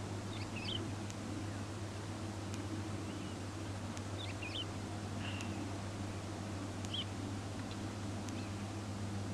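A few short, high bird calls in small clusters, about four times, over a steady low hum.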